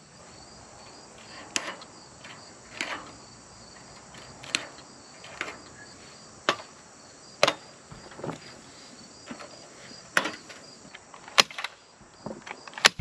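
Hand wire cutters snipping through galvanized chicken wire, one sharp snip at a time, about ten snips roughly a second apart. Steady insect chirring runs underneath.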